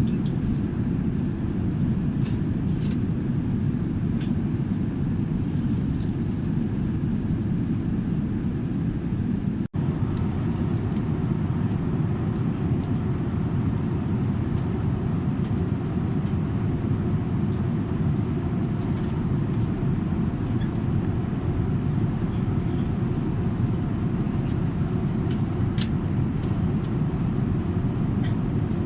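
Steady low rumble of airliner cabin noise inside a Boeing 787-10 in flight, with a brief break about ten seconds in.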